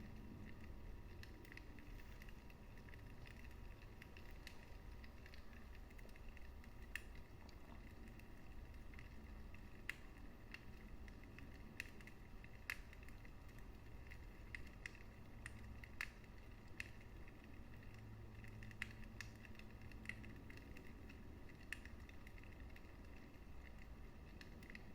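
Wood fire crackling quietly in a fireplace: scattered sharp pops every second or two over a low, steady rumble.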